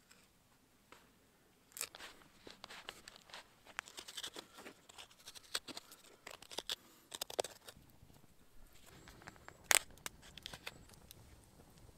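A knife shaving and cutting wood and birch bark: after about two quiet seconds, a run of short scraping strokes and clicks, with one louder sharp click near the end.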